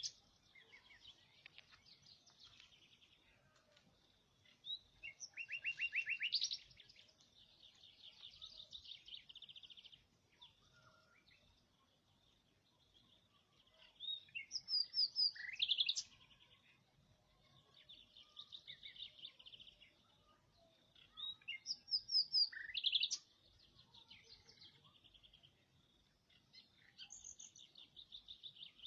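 A small songbird singing: quick chirps and rapid trills, with a louder phrase about every eight seconds and softer trilling between.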